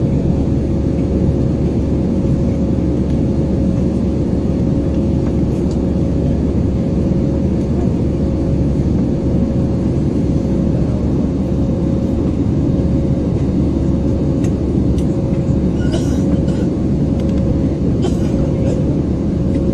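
Steady jet airliner cabin noise in flight: an even, deep drone of turbofan engine and airflow, with a thin steady tone running through it.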